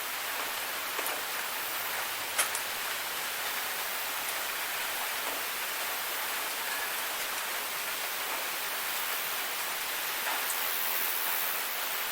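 Steady rain falling, an even hiss with a few sharp drips landing close by; the loudest drip is about two and a half seconds in.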